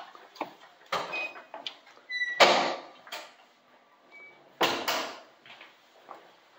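A key-card door lock gives a short electronic beep, then the latch and handle clack and the door opens. A second loud door noise follows about two seconds later.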